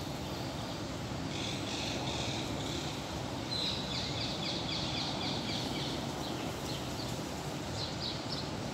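A bird chirping in quick series of short high notes, about five a second, strongest a few seconds in and again near the end. A steady low background rumble runs underneath.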